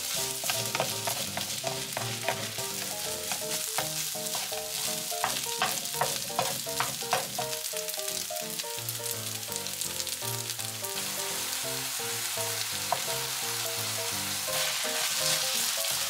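Kimchi fried rice sizzling in a nonstick frying pan while a spatula stirs and scrapes it, with frequent light clicks of the spatula against the pan.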